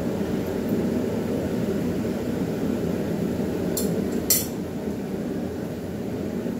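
Two sharp metal clinks about half a second apart, the second louder, as steel tongs are set down on the steel anvil. A steady low rushing noise carries on underneath.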